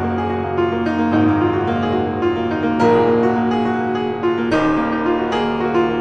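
Background piano music: sustained notes and chords changing every second or so.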